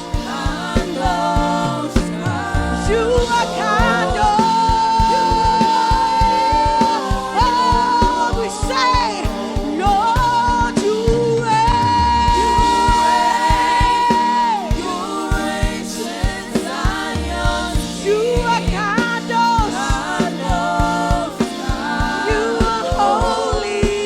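Live gospel worship music: singers over a band with a steady drum and bass beat, the lead voice holding two long notes, the first about four seconds in and the second about eleven seconds in.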